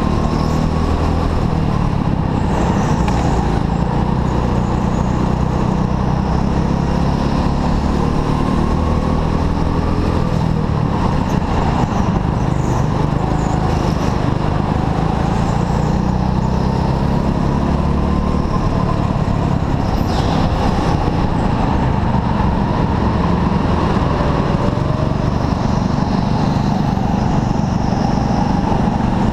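Racing go-kart's engine running at speed, heard through an onboard camera. Its pitch rises and falls as the kart brakes and accelerates through the corners.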